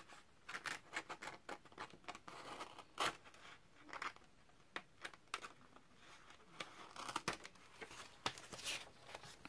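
Paper pages of a book rustling as they are lifted and turned, with the light scratching of a craft knife blade finishing off cuts through the pages. Short, irregular rustles and clicks.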